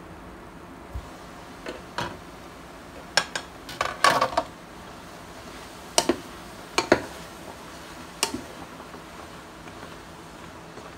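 Scattered sharp clinks and knocks of kitchenware, a dozen or so short strikes with a busy cluster about three to four seconds in, over a steady low background.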